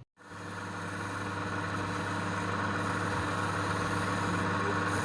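A machine's motor running steadily, starting just after a brief silence and building up over the first second, then holding an even drone.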